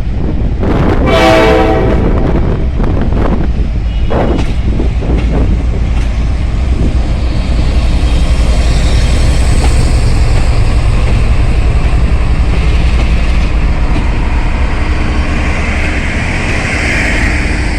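Train running past at the station with a loud, steady rumble of wheels and engine, and a short horn blast about a second in.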